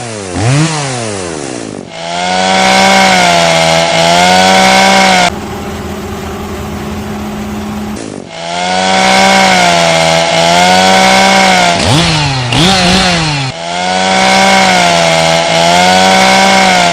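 A chainsaw engine held at high revs, its pitch wavering as it cuts. About five seconds in it drops to a quieter, lower tone for a few seconds, then revs back up, with quick rev sweeps in between.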